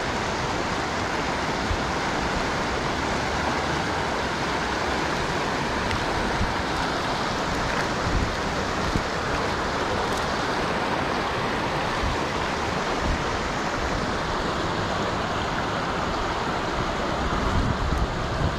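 Steady rushing of river water, an even wash of noise, with wind buffeting the microphone near the end.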